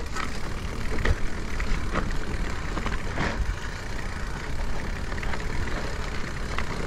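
Electric mountain bike riding down a rough, wet trail: a steady low rumble of rolling and wind noise, with knocks and rattles from the bike over the ground, the sharpest about one, two and three seconds in.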